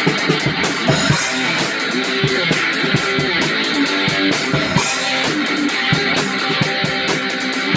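Guitar music, strummed and plucked, with a steady beat.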